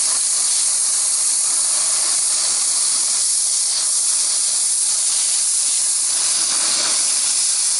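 Gas welding torch flame hissing steadily while puddling a seam on steel scrap, the torch turned up to a hotter flame.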